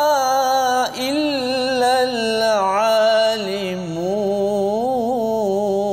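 A male Quran reciter chanting in the melodic tajwid style, drawing out long, wavering held notes, with a short pause for breath about a second in.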